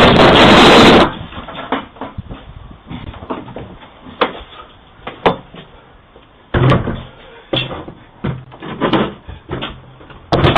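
A loud burst of noise for about a second, then a series of irregular knocks and bangs as a doorbell camera is struck, heard through the camera's own thin-sounding microphone.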